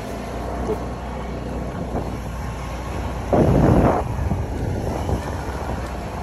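Motorbike engine running steadily as it rides along, with wind on the microphone. A brief loud rush of noise a little over three seconds in.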